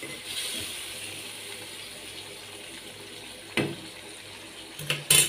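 Thin, watery potato gravy simmering in a kadai, a steady bubbling hiss. A knock comes about three and a half seconds in, and a few sharp clicks come near the end, the last of them the loudest.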